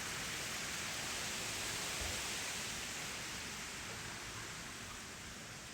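A steady hiss with no distinct events, fading slowly toward the end.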